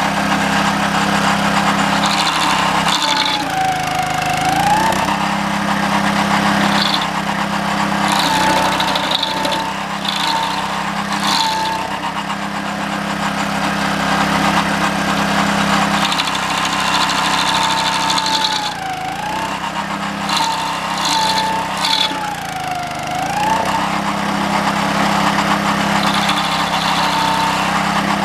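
A stump grinder's 6.5 hp Honda engine running hard, driving a toothed cutting wheel through a green pine stump. Its pitch dips and recovers several times as the engine bogs under load when the teeth bite, with intermittent chipping crackle over the steady drone.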